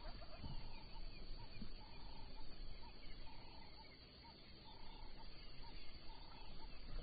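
Wildlife ambience: a short animal call repeated about every second and a half, each a held note followed by a brief pip, over a low rumble with a few dull thuds.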